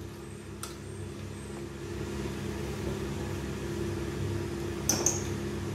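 Metal spoon clinking against an aluminium pressure cooker as ghee is scooped into the oil: a faint tap about half a second in and a louder, ringing clink near the end, over a steady low kitchen hum.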